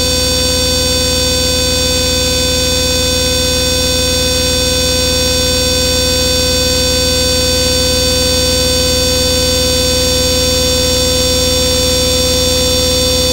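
Loud, unchanging wall of electronic noise from a modular synthesizer: a dense hiss packed with many held tones, the strongest a mid-pitched drone and a high whine, over a fast low buzzing flutter.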